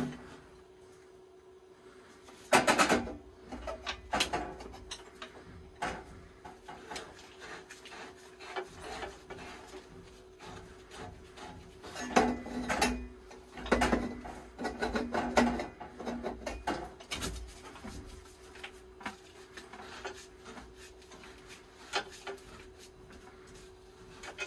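Hands-on plumbing work: scattered knocks, clinks and scraping of tools and pipe fittings being handled, in a cluster about three seconds in and again from about twelve to sixteen seconds, over a steady faint hum.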